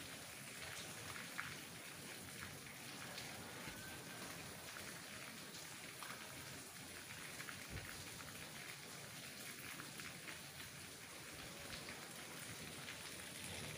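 Steady rain falling, with the sharp ticks of single drops striking close by.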